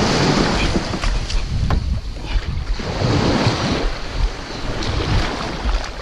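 Surf washing around a kayak at the shoreline, with wind rumbling on the microphone.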